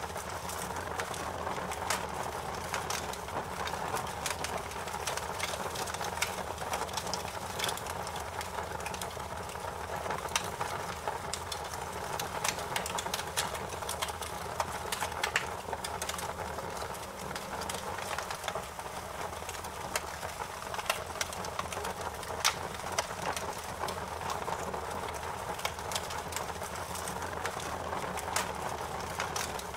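Fire crackling in a fireplace: irregular sharp pops and snaps over a steady hiss.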